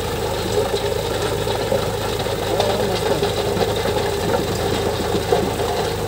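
Indo Farm tractor's diesel engine running steadily under load while it drives a rotavator through dry soil.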